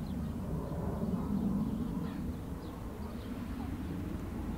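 Outdoor ambience: a steady low rumble with a few faint, short bird calls scattered through it.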